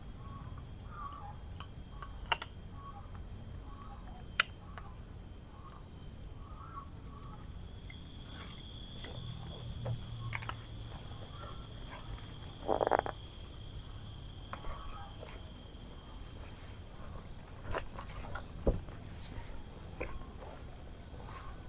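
Steady high trilling of insects in a tropical garden, with small repeated chirps from frogs or birds. Scattered clicks and a short rustle about 13 seconds in come from gear being handled and stowed in a waist pouch as someone moves about.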